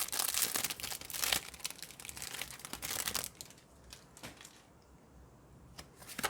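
A foil Pokémon booster pack wrapper being torn open and crinkled, with the crackling for about the first three seconds, then quieter handling with a few light clicks.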